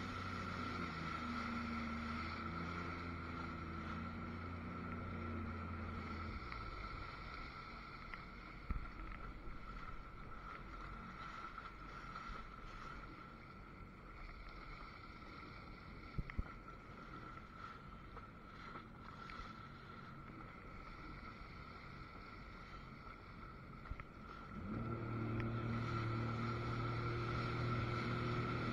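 Jet ski engine idling with a steady low hum that stops about six seconds in, leaving wind and small waves lapping, with a couple of short knocks. An engine idle sets in again a few seconds before the end, and the level rises.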